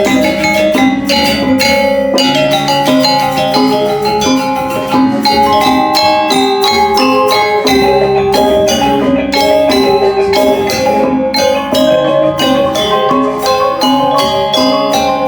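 Balinese gamelan music: bronze metallophones struck in a fast, dense stream of ringing notes.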